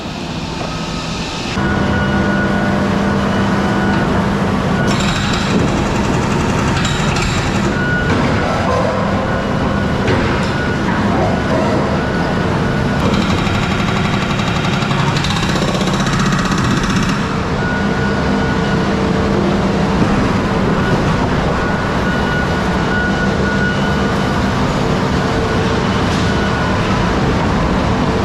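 Heavy construction equipment running steadily, a low constant engine drone, with patches of louder clatter and scraping coming and going over it.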